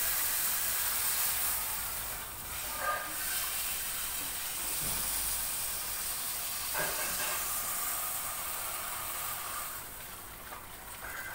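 Steady hiss, with a few short scrapes and knocks of a spatula and metal pan as cooked pumpkin and gima saag bhaji is tipped and scraped out of a non-stick kadai into a bowl.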